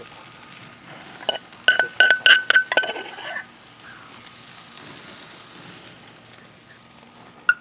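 A metal spoon clinking against a dish of sauce, a quick run of about six ringing clinks a little over a second in. Artichokes sizzle faintly on the grill underneath.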